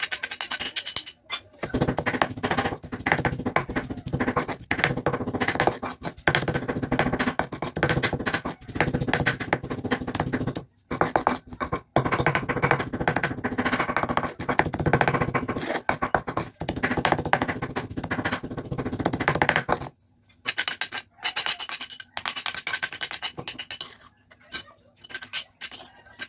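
Stone pestle grinding spice paste on a flat stone mortar (Indonesian cobek and ulekan): a long run of fast, rhythmic rubbing and crunching strokes that stops about 20 seconds in, followed by lighter, broken scraping of the paste across the stone.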